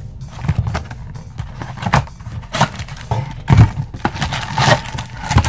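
Hands handling a cardboard trading-card box and its wrapped packs: irregular knocks and thumps with rustling, the loudest about two seconds and three and a half seconds in.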